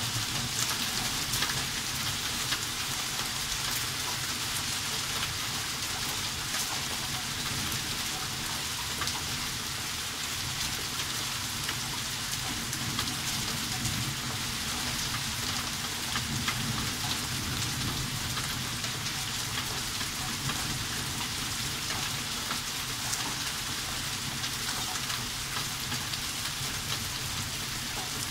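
Heavy rain from a hailstorm pouring steadily, with a dense patter of small sharp impacts on the surfaces around.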